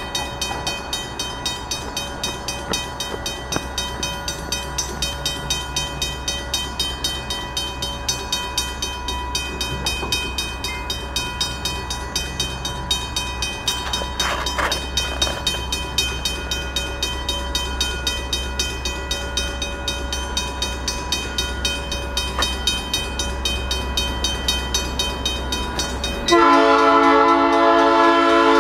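Safetran mechanical crossing bell ringing steadily with rapid, evenly spaced strikes at an active level crossing. Near the end, an approaching train's horn starts and sounds one loud, long note over the bell.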